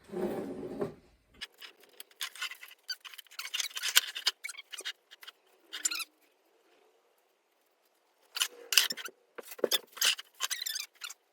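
Parts being handled during assembly of an animatronic prop: irregular rustling, clicks and small scrapes, with a pause of about two seconds midway.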